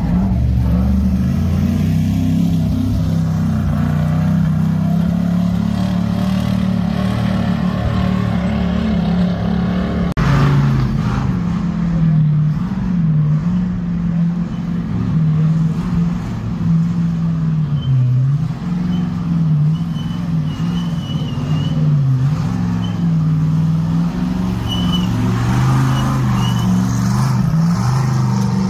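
Ultra4 off-road race car engines running and revving as the cars crawl over boulders: a loud, steady low engine note that rises and falls in pitch, with the sound changing abruptly about ten seconds in.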